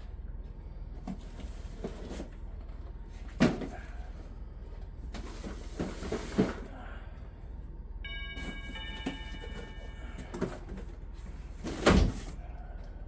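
Heavy tool box being shifted into place: a few sharp knocks and clunks, the loudest about three and a half seconds in and again near the end, over a steady low hum. A brief high squeak of several pitches comes about eight seconds in.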